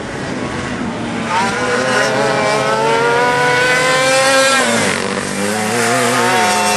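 Racing go-kart engines, a dual-reed two-stroke and a Wankel rotary, running hard at high revs. Their pitch climbs steadily for about three seconds, drops sharply about five seconds in, then holds lower with a wavering note.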